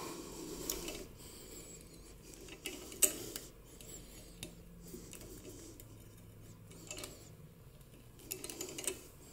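A hand tap being turned through a 3/8-16 threaded hole in an exhaust manifold, chasing the old threads and cutting out the remains of a broken bolt: faint metal scraping with a few light metallic clicks, the sharpest about three seconds in and a small cluster near the end.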